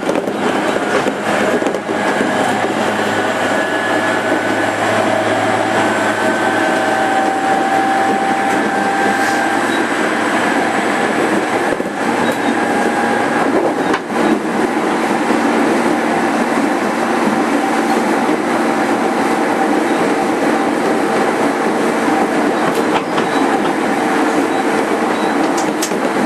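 Interior running noise of a JR 205 series 5000-subseries electric train, heard from inside a motor car while it runs along the line: the steady rumble of wheels on rail, with the faint whine of the traction motors and electrics over it.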